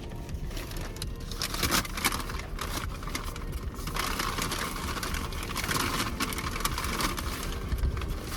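Paper food bag rustling and crinkling as it is handled, over the low rumble of an idling car.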